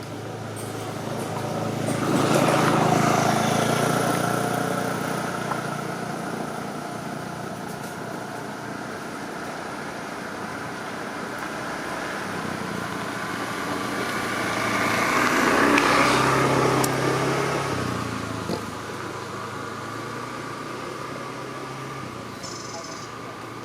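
Motor vehicles driving past, two passes that each grow louder and fade away, about three seconds in and again about sixteen seconds in, with a low engine hum between them.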